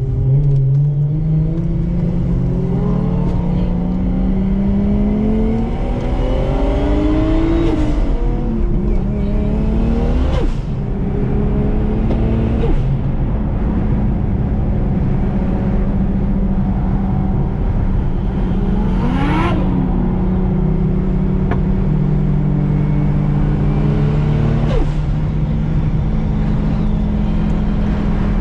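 Car engine heard from inside the cabin, climbing in pitch as the car accelerates over the first several seconds, then settling to a steady drone at motorway cruising speed.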